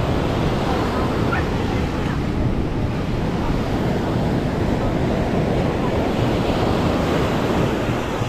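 Ocean surf washing onto a sandy beach, with wind buffeting the microphone into a steady low rumble.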